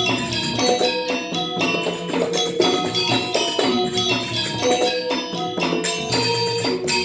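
Balinese gamelan Semar Pagulingan playing: bronze metallophones ring out quick, even runs of pitched notes over a steady pulse, with sharp metallic strikes on top.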